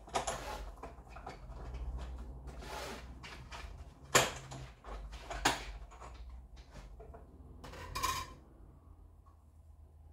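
Papercraft materials being handled on a work table: a few sharp knocks and clacks, the loudest about four and five and a half seconds in, between stretches of paper rustling, over a low steady hum.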